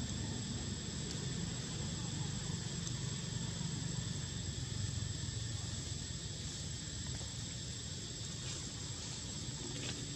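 Steady high-pitched insect drone over a continuous low rumble, with a couple of faint ticks near the end.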